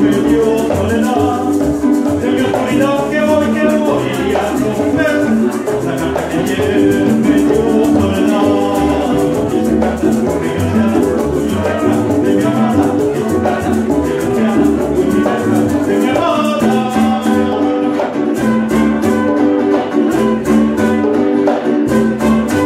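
Small live Latin band playing a tune: acoustic guitar, upright double bass and hand percussion, with a steady shaker rhythm.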